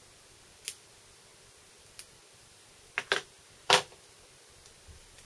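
Sharp clicks and snaps from electrical tape and small model-locomotive parts being handled by hand: five separate clicks, the three loudest close together a little past the middle.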